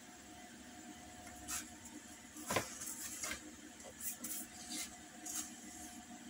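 A paper sheath pattern being handled, slid and turned on a cutting mat, and a roll of masking tape and a scratch awl being moved about: a string of short rustles and scrapes, with one sharper knock about two and a half seconds in.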